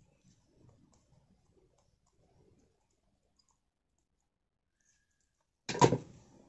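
Faint light clicks and taps from handling small electronic parts during soldering work, then a sudden loud clatter near the end.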